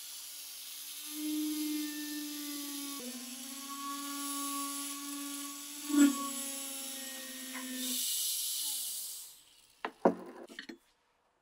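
Small rotary tool spinning a felt polishing bob against a steel axe head: a steady whine that shifts pitch a few times as it is pressed on, then winds down. About a second later come a few metal knocks as the axe head is set in a bench vise.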